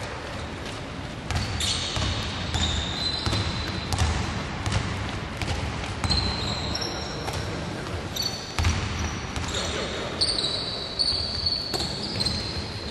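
Basketball game on a wooden gym court: a ball bouncing repeatedly, short high sneaker squeaks, and players' voices calling out in the hall.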